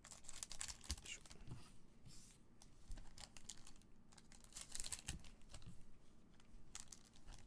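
Scissors snipping through the foil wrappers of Topps Chrome Sapphire trading-card packs, with the foil crinkling as the packs are handled.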